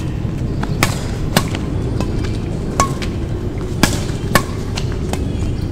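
Badminton rackets striking a shuttlecock back and forth in a rally, five sharp hits at uneven intervals, over a steady low rumble of background noise.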